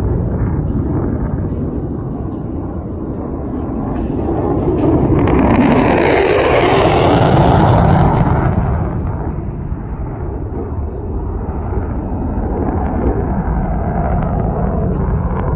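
F-35A Lightning II fighter jet noise: a continuous deep rumble that swells to its loudest, with a sharp high hiss added, between about five and eight seconds in, then eases back to the rumble.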